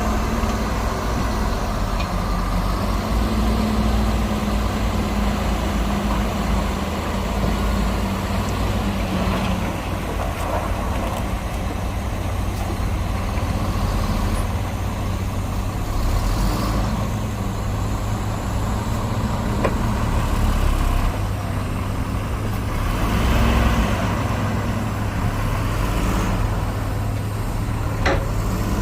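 Heavy diesel earthmoving machinery, dump trucks and a bulldozer, running steadily with a low engine drone that rises and falls a little, and a sharp click near the end.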